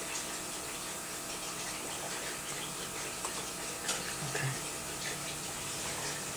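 A man sipping water from a plastic cup and swallowing: faint sips and small mouth sounds over a steady background hiss.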